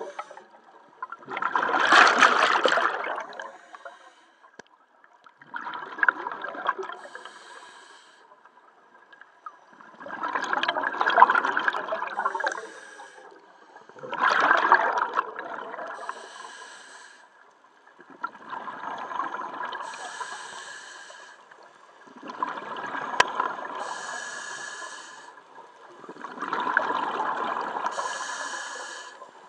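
A scuba diver breathing through a regulator, heard underwater. A rush of exhaled bubbles comes about every four seconds, seven times, each followed by a thinner, higher hiss.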